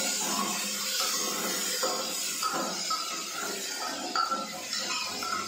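Metal spoon stirring and scraping onions frying in an open steel pressure cooker, clinking against the pot several times over a steady sizzle.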